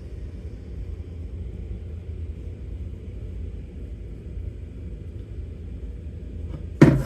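Steady low rumble, like a motor or fan running. A much louder sudden sound breaks in just before the end.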